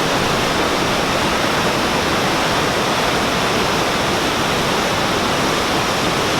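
Victoria Falls' water crashing down the gorge, heard as a loud, steady, unbroken rush.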